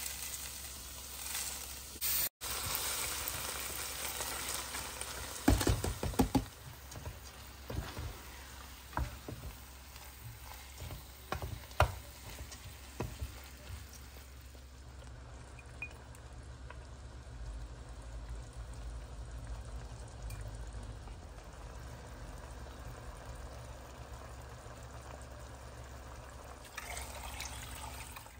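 Bulgur and diced vegetables sizzling in a nonstick frying pan as a wooden spoon stirs them, with several sharp knocks and scrapes of the spoon against the pan. Near the end, water is poured into the pan.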